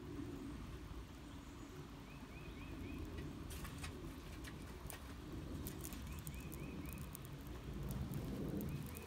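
Wood fire in a tin-can hobo stove crackling, with sharp pops from about three and a half seconds in, over a low steady rumble. A bird repeats a short phrase of four or five quick chirps every few seconds.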